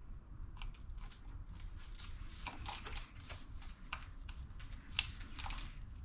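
Handling noise: scattered light clicks and crinkles, with one sharper tick about five seconds in.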